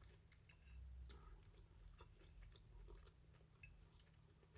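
Faint chewing: a person quietly eating brisket taco, with soft scattered mouth clicks over a low steady hum.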